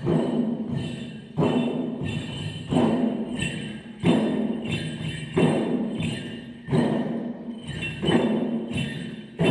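Chyabrung, the Limbu double-headed barrel drums, beaten together by a group of dancers in a slow, even rhythm: a heavy stroke about every second and a third, each ringing out before the next.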